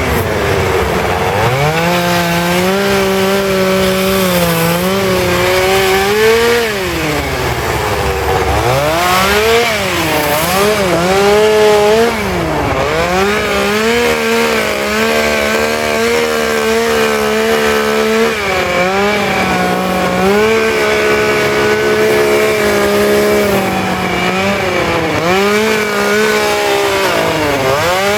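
Petrol two-stroke chainsaw carving wood. The engine revs up under the throttle and eases off again and again: held steady for a few seconds at a time, with several short dips where the throttle is released.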